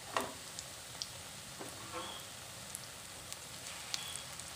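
Gram-flour (besan) batter fritters deep-frying in hot oil in an iron kadai: a steady sizzle with scattered crackles and pops.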